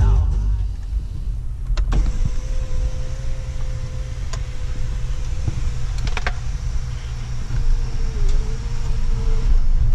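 Toyota Prado 150's electric sunroof motor running as the sunroof opens: a steady whine with a few clicks along the way, its pitch dipping briefly near the end before it stops, over a low steady rumble. The sunroof is working normally with the roof rack fitted.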